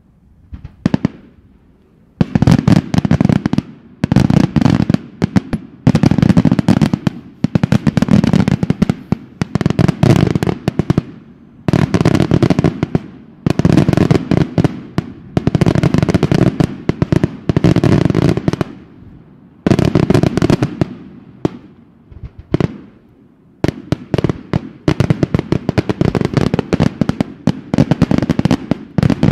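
Daytime aerial fireworks bursting in dense volleys of rapid bangs and crackles. The volleys come in waves a second or two long with short lulls between, and run almost without a break near the end.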